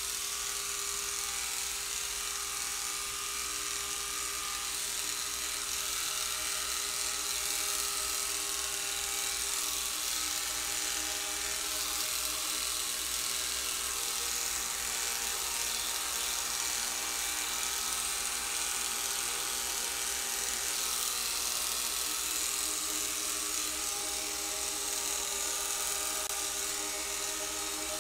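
Electric hair clippers buzzing steadily as they shave through a cat's fur.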